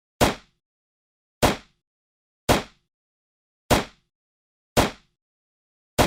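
9mm pistol fired single shots: six sharp reports about a second apart, each dying away quickly into silence.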